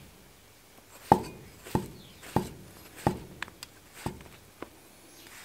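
Chinese cleaver slicing thick pieces off a large black bolete mushroom and striking a wooden chopping block: about five sharp chops, roughly every two-thirds of a second, with a few lighter taps between.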